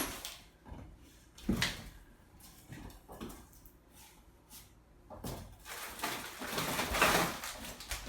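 Parts and packaging being handled as they are lifted out of a box: a few short knocks, the loudest about a second and a half in, then several seconds of rustling and scraping.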